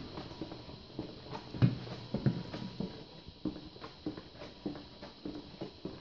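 Footsteps walking briskly on a hard painted concrete floor, about two steps a second, with a couple of heavier footfalls about two seconds in.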